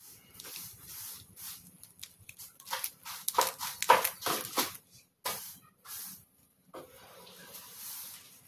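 Crisp roasted dried Alaska pollock being torn apart by hand, its brittle bones and fins snapping off: a run of dry crackles and snaps, densest and loudest about three to five seconds in.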